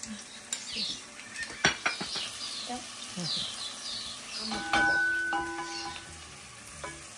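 Kitchen utensil clinks and scrapes: a spoon tapping a ceramic salt pot and a wooden spoon scraping in an enamel pot of onions frying in oil. A sharp clink comes about a second and a half in, and a struck clink near five seconds rings on briefly.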